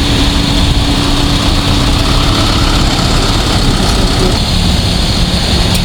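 Steady engine and road rumble of a motor vehicle, with a faint steady hum in it.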